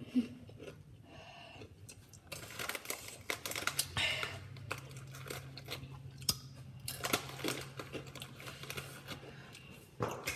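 Close crinkling and rustling with scattered light clicks and taps, in a few bursts, as snack packaging and food are handled; a steady low hum runs under the middle part.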